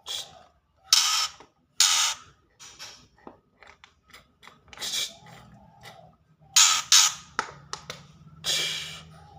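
Juvenile white-rumped shama giving a series of about seven harsh, rasping calls, with small ticks between them. A faint low hum sets in about halfway through.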